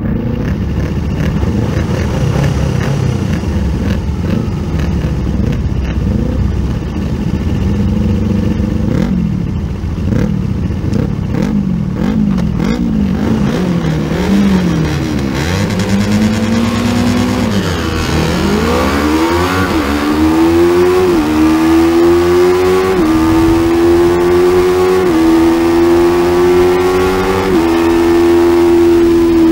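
Small-displacement supersport race motorcycle engine, heard from on the bike: held at wavering revs on the start grid, then about sixteen seconds in it launches and accelerates hard, the pitch rising and dropping back with an upshift roughly every two seconds.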